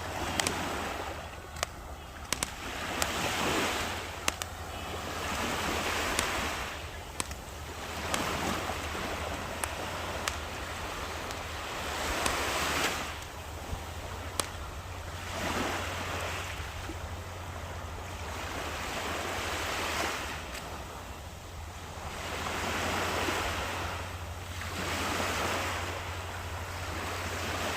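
Sea waves breaking and washing on the shore, the surf swelling and falling away every two to three seconds, with a steady low rumble underneath and scattered sharp clicks.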